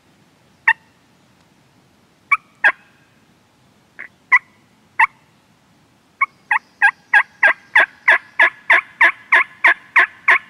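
Turkey call worked to imitate a hen: a few spaced clucks, then a run of about fourteen yelps, about three a second, starting about six seconds in.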